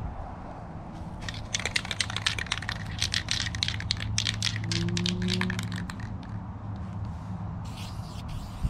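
Aerosol can of vinyl dye being shaken, its mixing ball rattling in a fast run of clicks for a few seconds, followed by short hissing spray bursts near the end as the dye goes on. A low hum comes in briefly in the middle.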